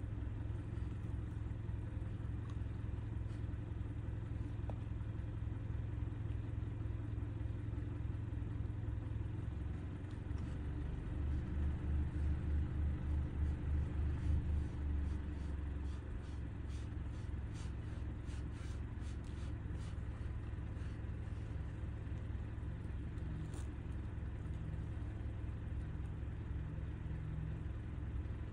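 Steady low rumble of an idling car engine, swelling into a stronger, pulsing rumble for a few seconds in the middle. A run of faint ticks follows.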